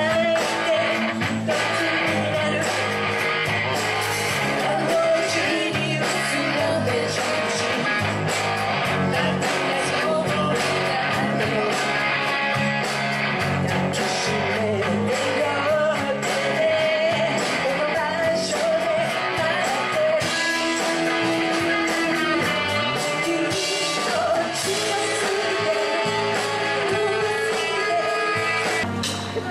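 Live band performing a rock-style song: a woman singing lead over electric guitar and drums.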